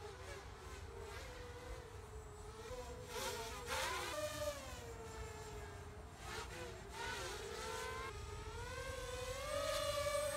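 Emax 250 FPV racing quadcopter flying overhead, its electric motors and propellers giving a buzzing whine whose pitch wavers up and down as the throttle changes. It swells louder about three seconds in and again near the end.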